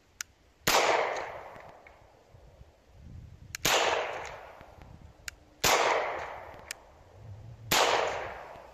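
Four pistol shots from a CZ P09 in .40 S&W, about two seconds apart, each followed by a long fading echo. A few short, sharp ticks fall between the shots.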